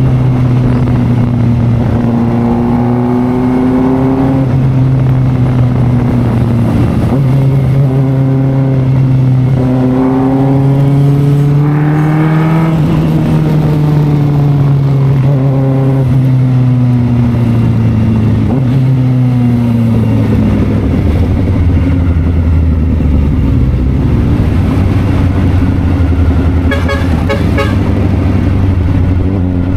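Kawasaki Ninja ZX-4RR's inline-four engine through an SC-Project exhaust, heard from on the bike: the revs climb and drop again and again as it shifts through the gears, then fall away in a long slide and settle to a lower, steadier note after about twenty seconds. Near the end comes a quick run of short beeps.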